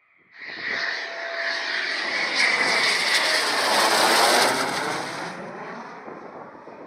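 Eurofighter Typhoon's twin Eurojet EJ200 jet engines on approach with gear down, passing close by. The jet noise comes in sharply about half a second in, is loudest around four seconds, then fades as the aircraft moves away.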